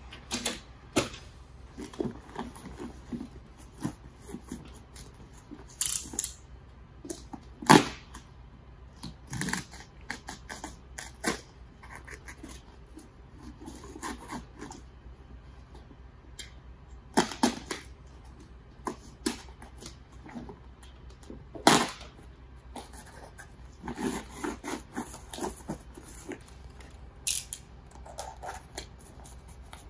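Plastic airtight membrane sheet rustling and crinkling as it is cut and pressed around a timber joist end, with irregular sharp clicks and snaps, a few of them loud.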